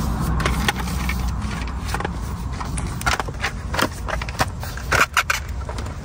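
Plastic backing cover of a carbon fibre steering wheel being handled and fitted: scattered light clicks and knocks, with a quick cluster of them about five seconds in, over a steady low hum.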